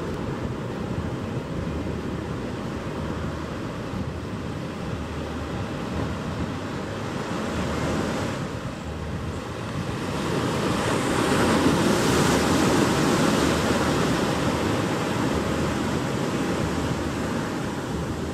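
Ocean surf washing onto a beach, with one wave breaking louder a little past halfway and then slowly fading. Wind rumbles on the microphone.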